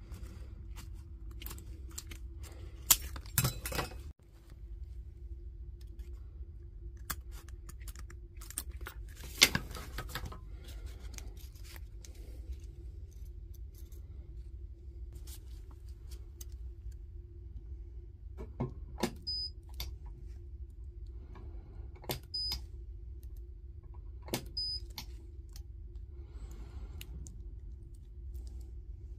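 Metal clicks, snips and tearing as nickel connection strips are cut with scissors and pulled off the 18650 cells of a power-tool battery pack, and the paper insulation is torn away, over a steady low hum. There are two loud snaps in the first ten seconds, and three sharp cracks about three seconds apart in the second half.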